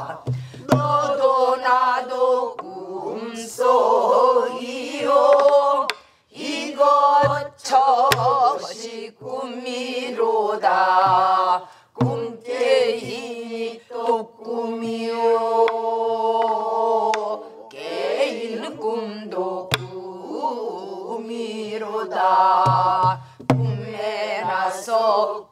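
A woman singing a Namdo (southwestern Korean) folk song with a heavily shaking, bending voice, while other voices join in. She beats the rhythm on a buk barrel drum: low thuds from the drumhead and sharp clicks from the stick on the wooden shell, with short pauses between phrases.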